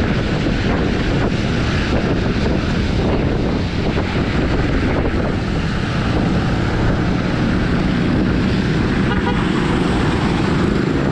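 Typhoon wind buffeting the microphone as a bicycle rides a rain-soaked road: a steady, loud rumble mixed with the hiss of tyres on wet tarmac.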